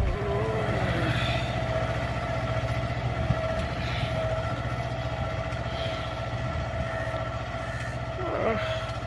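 Diesel engine of a Mahindra 24 HP mini tractor running steadily at a constant speed while it pulls a ridging implement through tilled soil to form furrows.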